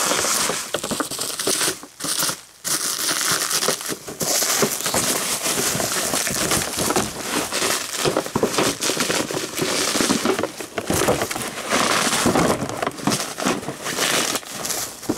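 Plastic packing wrap crinkling and rustling as a boxed toy is pulled out of it by hand, with a brief lull about two seconds in.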